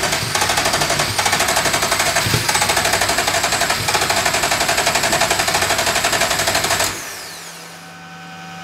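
Ferrari engine in an Alfa Romeo 105 being turned over by its starter motor: a fast, even cranking rhythm with a few coughs as it tries to fire but doesn't catch. The engine has no working cam angle sensor signal, so the ECU may be firing the spark on the wrong revolution. The cranking stops about seven seconds in, leaving a falling whine and a steady hum.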